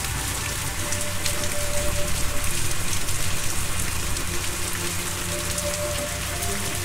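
Steady rain falling, with faint held tones of soft ambient music beneath it.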